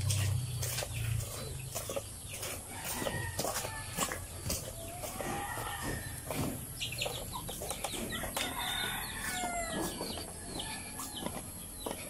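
Chickens clucking and calling, several short calls that bend in pitch, mostly in the second half, over a scatter of light footsteps.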